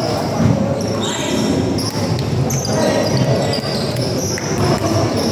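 Basketball being dribbled and bounced on a gym court, under a steady hubbub of crowd and player voices echoing in a large hall.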